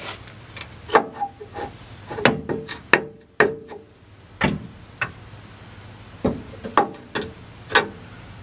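Steel parts of a van's front steering linkage being handled and knocked together: about a dozen irregular metallic clinks and knocks, some with a short ring.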